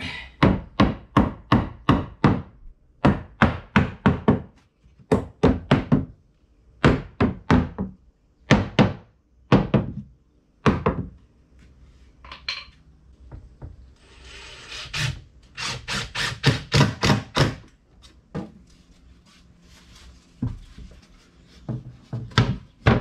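Hammer knocking on wood in quick runs of four to six blows with short pauses between, with a short rough scrape of wood on wood about two thirds of the way through.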